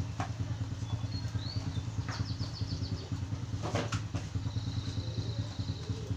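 A steady low engine hum, like a small engine idling, throughout. About four seconds in comes a short clatter of boxes being handled into a bag, and a few faint bird chirps sound over the hum.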